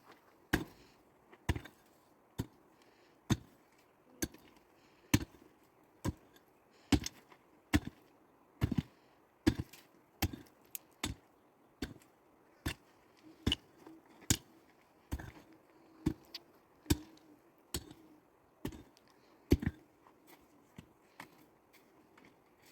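Steady chopping: a long series of evenly paced single blows, a little faster than one a second, each with a short ring.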